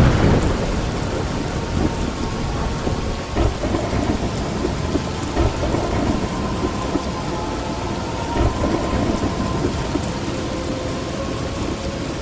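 Thunderstorm: steady heavy rain, with a loud thunderclap at the start and low rolling rumbles of thunder after it.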